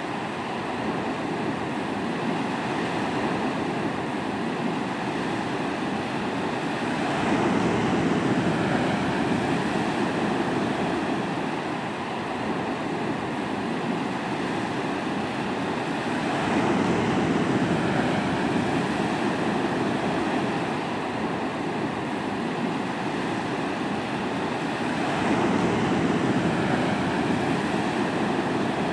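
Ocean surf from a hurricane swell, waves breaking and washing up the beach in a continuous rumbling rush that grows louder three times, about every nine seconds, as sets break.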